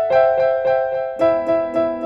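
Background music: a piano playing a gentle melody of repeated notes, with lower notes joining about a second in.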